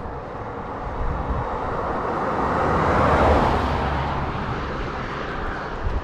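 A car passing close by on the road, its engine and tyre noise swelling to a peak about three seconds in and then fading away.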